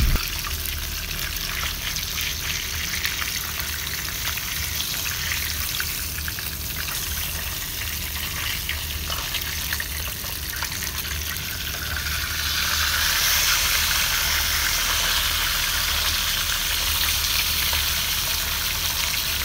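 Whole tilapia deep-frying in hot oil in a pan: a steady sizzle that gets louder about two-thirds of the way through, as the fish is turned over to fry its other side.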